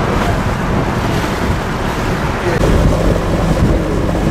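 Wind buffeting the microphone on a moving boat, over the steady sound of the boat's motor and the water. The low rumble grows louder about two and a half seconds in.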